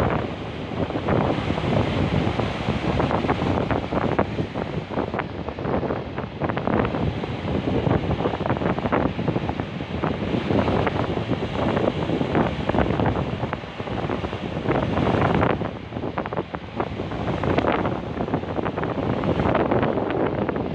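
Sea waves breaking and washing on the shore, the surf swelling and easing every few seconds, with wind buffeting the microphone.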